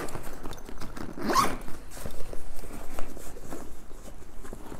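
A heavy-duty YKK zipper on a 1000D nylon backpack being drawn closed in several short, halting pulls, with the nylon fabric rustling as it is handled. The zipper is stiff and catching, which the owner puts down to the bag still being new and not yet broken in.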